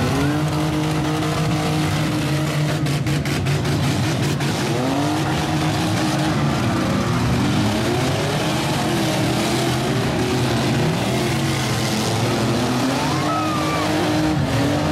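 Several demolition-derby truck, van and SUV engines revving together, their overlapping pitches rising and falling. A brief rattle of knocks comes about three seconds in.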